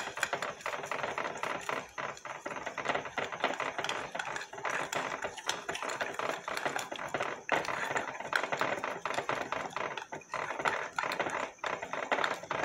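Metal spoon stirring and beating egg, sugar and yeast in a ribbed glass bowl: fast, continuous clinking and scraping of the spoon against the glass, with brief let-ups about two seconds in and near ten seconds.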